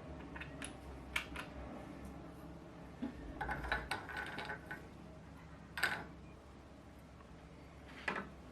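Light clicks and metallic clatter of parts being handled on an industrial sewing machine, the loudest about six seconds in, over a faint low hum that fades out about four seconds in.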